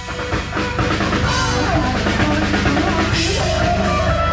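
Band music with a drum kit and heavy bass drum, played loud through a rot hae sound truck's WARTECH loudspeaker system, with a woman singing into a microphone over it.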